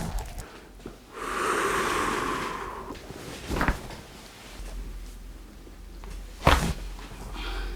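Chiropractic back adjustment: a long breathy rush, then short sharp pops from the spine, the loudest about six and a half seconds in.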